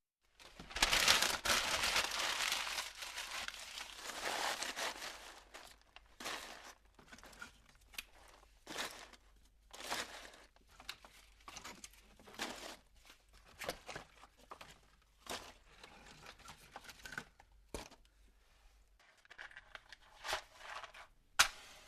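Leaves being crushed and crumpled: a dense, continuous crackling for the first five seconds or so, then separate short crunches roughly once a second.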